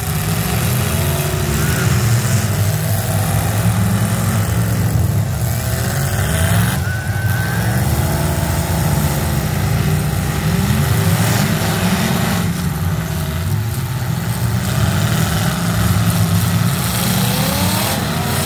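Several demolition derby cars' engines running loud and continuously, their revs rising and falling over one another as the cars push and ram.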